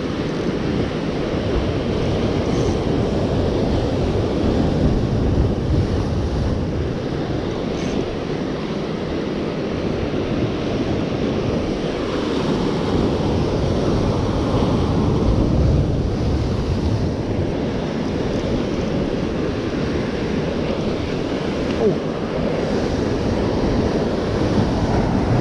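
Ocean surf breaking against a rocky lava shoreline, a steady heavy wash of water with wind buffeting the microphone.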